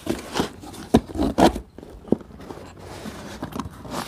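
Cardboard handling: the flaps of a shipping carton knocking and scraping as a boxed induction cooktop is pulled out of it, with a run of sharp knocks and scrapes in the first two seconds and quieter rustling after.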